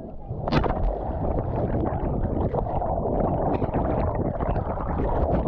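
Wind buffeting the microphone over the rattle and clatter of a mountain bike riding fast down a rough trail, a steady rumble full of small knocks.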